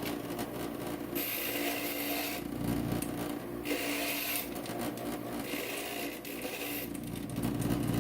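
Inland stained glass grinder running with a steady motor hum, while the edge of a glass piece is pressed against the grinding bit in three passes of hissing, rasping grinding.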